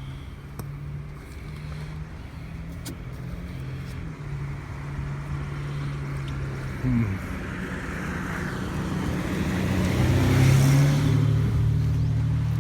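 A car driving slowly up and passing close by. Its engine and tyre noise build and are loudest about ten seconds in, over a steady engine hum.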